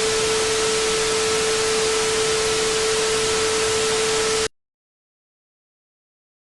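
Static-like hiss of white noise with a steady mid-pitched tone held beneath it, cutting off abruptly about four and a half seconds in to dead silence.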